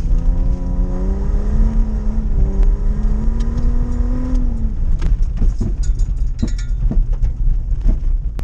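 Lifted, doorless Holden Commodore's engine revving hard while the car skids on dirt. Its note climbs, dips once and climbs again, then falls away about halfway through. Scattered knocks and rattles follow over a heavy low rumble.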